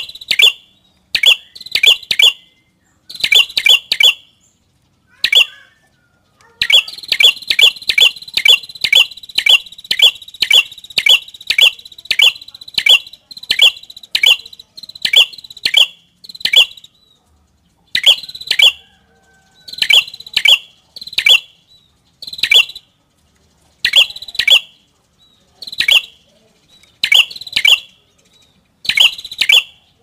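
Ashy tailorbird (prenjak kepala merah) singing: loud, sharp, high chirps in quick groups of two to four. A long run of evenly spaced chirps, about two a second, comes in the middle.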